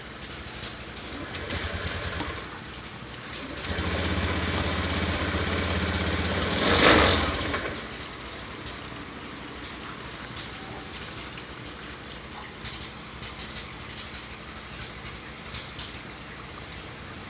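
Fuel-injected motorcycle engine running. About four seconds in it is held at higher revs, peaks near seven seconds, then drops back to a steady idle.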